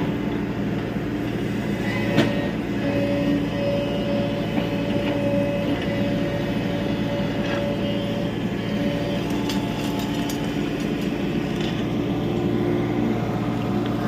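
Tata Hitachi EX70 Super Plus excavator running under load: a steady diesel hum with a whine over it, and scattered knocks and clatter of demolition debris, the sharpest about two seconds in.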